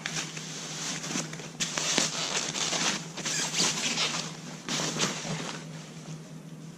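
Packaging rustling and crinkling in irregular bursts with a few clicks, as the fork legs are unwrapped, over a steady low hum.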